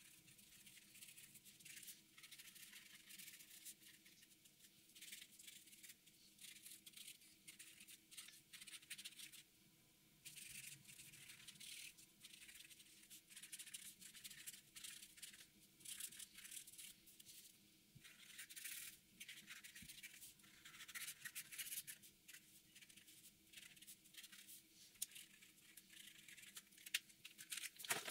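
Faint scratching of a felt-tip marker nib on paper in quick, uneven colouring strokes, with a short pause partway through.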